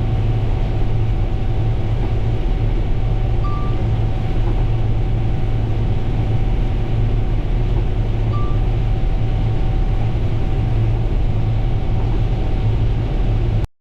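Combine harvester running steadily while harvesting corn: a loud, steady low drone with a faint steady whine above it, and two short high beeps several seconds apart. The sound cuts off suddenly just before the end.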